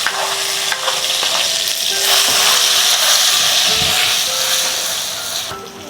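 Food frying in hot oil in a pan: a loud, steady sizzle that dies away near the end.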